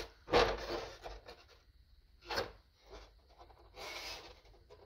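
A small wooden stiffener rubbed and scraped against the inside of a plywood RC boat hull as it is offered into place: a scrape about half a second in, a short knock near the middle, and a lighter scrape near the end.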